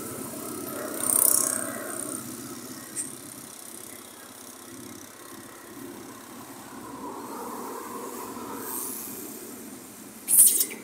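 Steady outdoor background noise like distant traffic, with a short high hissing rustle about a second in and a louder, sharp hissing burst near the end.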